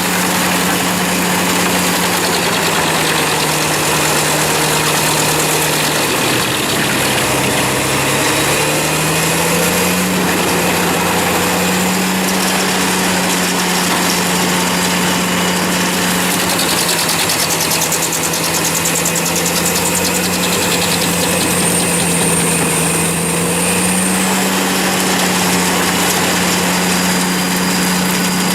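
Wood chipper's engine running steadily. Its pitch drops noticeably about six seconds in and climbs back a few seconds later, then sags slightly again and rises near the end.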